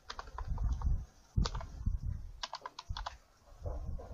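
Typing on a computer keyboard: irregular keystroke clicks in small clusters, with a short pause about three seconds in.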